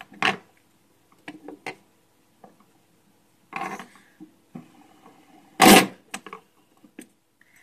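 Metal fidget spinners clicking against each other and knocking on a wooden tabletop as they are stacked: scattered light clicks with short gaps, the loudest a sharp clatter a little before six seconds in.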